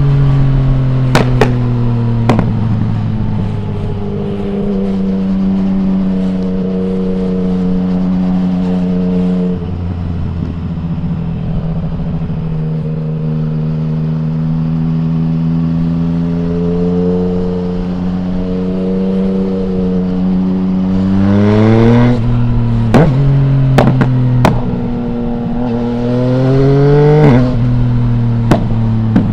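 2020 Yamaha MT-09's three-cylinder engine through an Akrapovic full exhaust with no dB killer, running at a steady, slowly falling cruise for most of the time. About two-thirds of the way in it revs up hard, drops with a gear change, then climbs again and drops once more. A few sharp pops stand out over the engine note.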